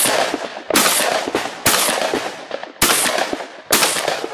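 Shotgun fired four times at an even pace, about one shot a second. Each blast trails off in a long echo.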